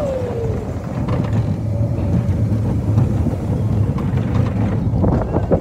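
Roller coaster train running fast along its track: a steady low rumble with scattered rattles, the clatter growing busier near the end, and wind buffeting the microphone.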